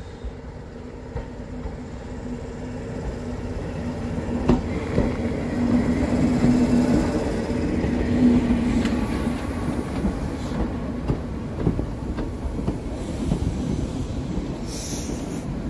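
British Rail Class 43 HST diesel power car running past with its coaches: a steady engine hum with wheel clicks on the rails. It grows louder to a peak about halfway through, then slowly fades.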